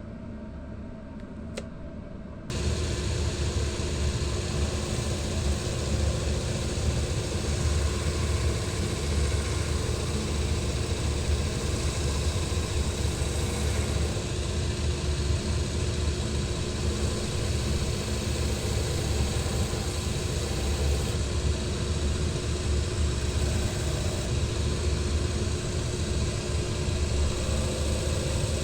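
An electric workshop machine switches on about two and a half seconds in and runs steadily with a low hum.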